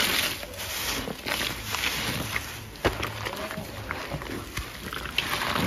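Rubber-gloved hands squishing and sloshing thick Ajax cleaning-paste foam in a bowl of water: irregular wet squelches and swishes, with a sharp tap about three seconds in.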